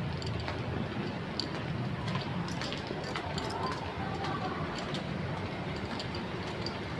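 Steady street noise with irregular clicking footsteps on pavement as a group walks, and faint voices in the background.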